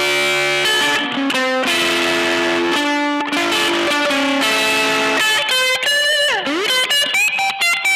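Electric guitar played through an EarthQuaker Devices overdrive pedal, a mildly driven tone. Held chords change about once a second, then quick single-note lead runs begin about five seconds in, with a slide down and back up in pitch near the end.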